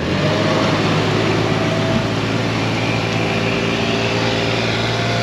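Toyota Prado's V6 petrol engine pulling steadily as the 4WD drives off through soft sand on tyres aired down to 15 psi, moving without bogging down. The engine note sets in at the start and holds an even pitch.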